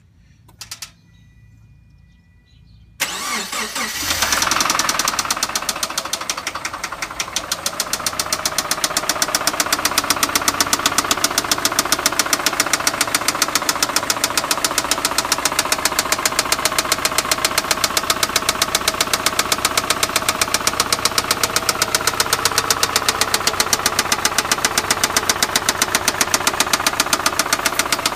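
Subaru EJ252 2.5-litre flat-four engine starting about three seconds in, then idling with a rapid, even ticking: the tick noise the owner is trying to show.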